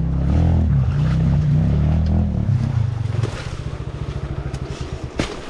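Dirt bike engine revving up and down for about three seconds, then dropping to a slow, even putter at low revs, with a sharp click or knock near the end.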